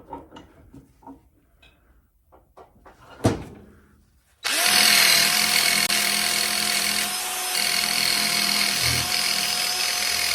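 A few faint handling clicks and one sharp knock about three seconds in. At about four and a half seconds a power wire-brush wheel starts and runs steadily at constant speed, scouring rust off the metal base of a VW Beetle pedal assembly.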